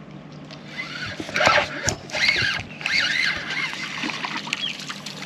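A hooked puffer fish splashing at the water's surface as it is reeled in on a spinning rod, with sharp splashes about a second and a half and two seconds in. A run of high rising-and-falling chirping calls sounds over it.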